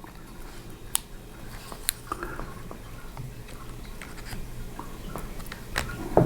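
Small sharp clicks and light handling noises of a laptop's internal cable and plastic parts being positioned by hand, with a louder click near the end.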